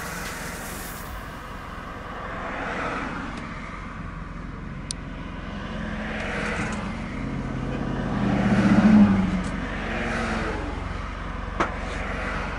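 Ford Expedition's engine running as the SUV is driven slowly, swelling and rising in pitch a little past the middle before settling again; two short sharp clicks.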